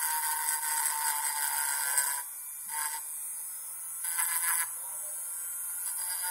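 Small high-speed rotary tool grinding the metal of a Zippo lighter's hinge, roughening it for soldering. It runs steadily with a high whine for about two seconds, then comes in short bursts as the bit touches the metal again.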